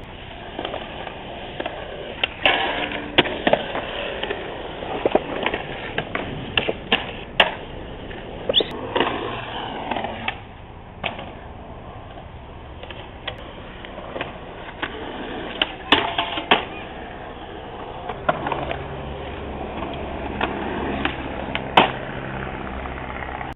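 Skateboards rolling on concrete, with repeated sharp clacks of boards hitting the ground and ledges, spread irregularly through the stretch.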